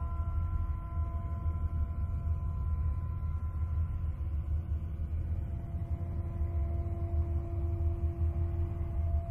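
NASA spacecraft recording of electromagnetic vibrations in space, converted into sound: a deep, steady rumble with several faint, drawn-out tones held above it. The lowest tone grows stronger partway through.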